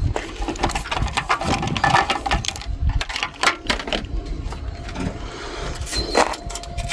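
Rapid, irregular clicks, taps and knocks of tools and car parts being handled, over a low rumble.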